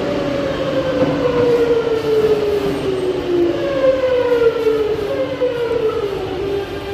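Metro de Madrid train's electric traction drive whining, its pitch falling in three successive sweeps as the train slows, over a steadier lower hum.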